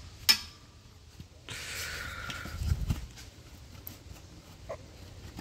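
Oxygen sensor wiring connector being unplugged under the car: one sharp click near the start, then about a second and a half of rustling and scraping with a couple of soft knocks, and a few faint ticks near the end.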